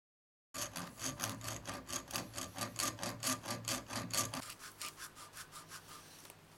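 Hand hacksaw with a bi-metal blade cutting through a plastic gear rack, in quick back-and-forth strokes of about four to five a second. Just over four seconds in, this gives way to softer rubbing strokes of sandpaper smoothing the cut.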